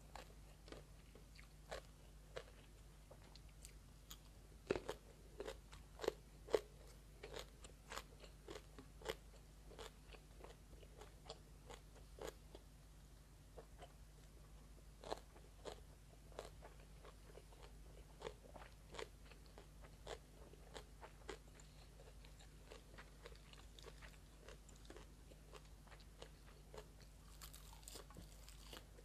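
A person chewing and crunching mouthfuls of rice and braised pork belly close to the microphone, with many sharp crunches and mouth clicks. The loudest come about four to seven seconds in, over a faint steady hum.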